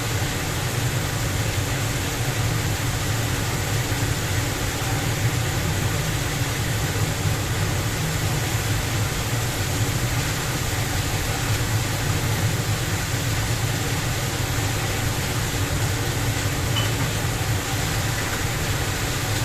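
Large commercial restaurant dishwasher running: a steady low motor hum under an even hiss.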